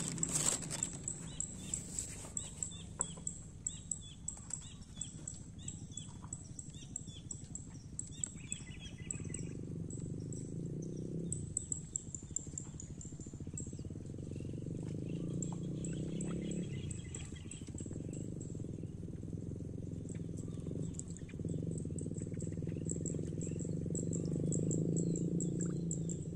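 Waterside ambience: insects trilling steadily at a high pitch, with birds chirping through roughly the first nine seconds. From about nine seconds in, a low drone comes and goes.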